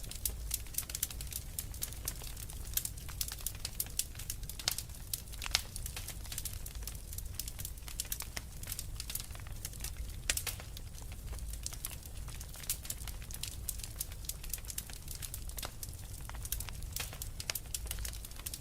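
Fire in a fireplace crackling: many small irregular pops and snaps over a low steady rumble.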